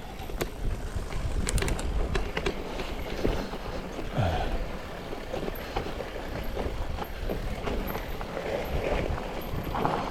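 Mountain bike being ridden over a rough dirt trail: tyres on ground with irregular rattles and knocks from the bike, and a steady rumble.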